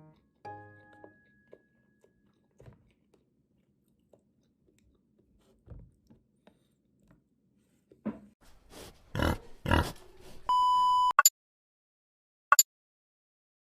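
A few knocks and rubbing noises of handling, then a single electronic beep lasting about half a second, then a short click.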